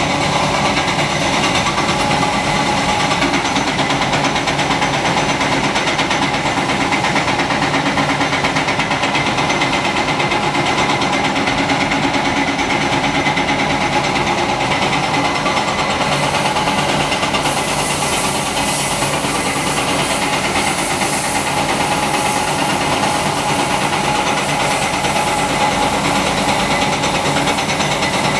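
Caterpillar 330D L excavator's six-cylinder diesel engine running steadily under working load as the machine digs, swings and loads dirt. A higher hiss joins in for several seconds past the middle.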